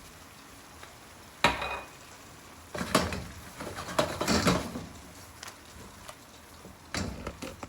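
A metal spatula knocking and scraping against a pan as a stir-fry is tossed: one sharp clank about a second and a half in, a longer run of clattering a little later, and another near the end, over the low steady sound of the food frying.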